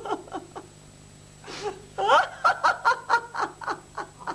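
A woman laughing in short, quick bursts, with a breathy intake about a second and a half in.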